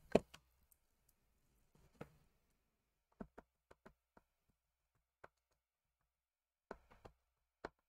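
Scattered light taps and clicks of a clear acrylic stamp block being dabbed onto an ink pad to ink the stamp, about ten soft knocks with quiet between, the sharpest one right at the start.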